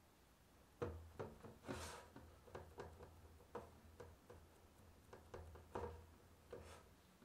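Fingers pressing and patching tart dough against the sides of a fluted metal tart tin: faint, irregular taps and clicks, with a brief scrape about two seconds in.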